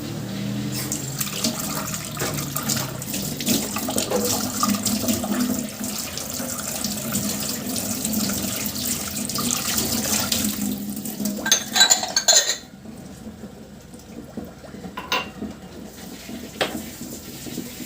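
A steady rush of water that cuts off abruptly about twelve and a half seconds in, followed by a few light knocks.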